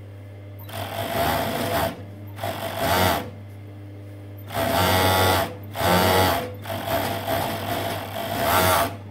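Juki MO-6714S four-thread industrial overlocker stitching a seam in knit fabric in five short runs, the last and longest ending near the end, with a steady low motor hum between the runs.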